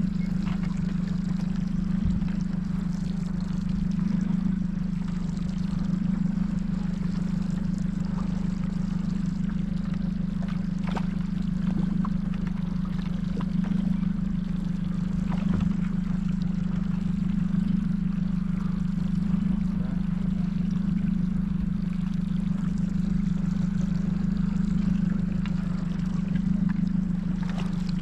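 Boat motor running steadily, a constant low hum, with water trickling and splashing around the hull.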